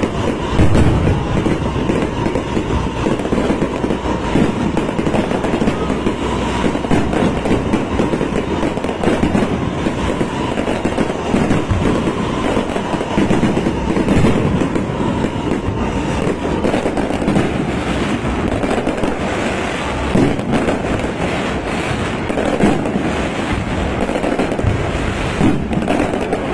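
Fireworks barrage: a dense, continuous crackle and popping of many bursts overlapping with no break.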